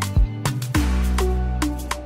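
Background music with a drum beat and a deep, held bass line under melodic notes.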